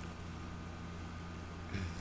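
Quiet room tone with a steady low electrical hum, broken near the end by a brief soft bump.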